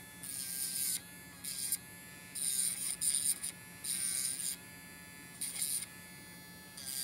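Compet electric pet nail grinder running with a steady whine, its spinning bit filing a dog's claws in about five short spells of grinding hiss.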